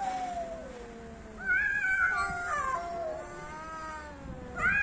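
Two cats caterwauling at each other in a face-off: long, drawn-out wavering yowls, the threat calls that come before a cat fight. A lower wail fades early on, and a louder yowl rises about a third of the way in, with another starting near the end.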